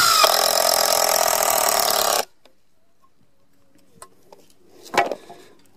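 Ridgid 18V cordless impact driver hammering a self-drilling exterior screw into wood, a loud, fast rattling that stops abruptly a little over two seconds in as the screw goes all the way through. A couple of small clicks follow near the end.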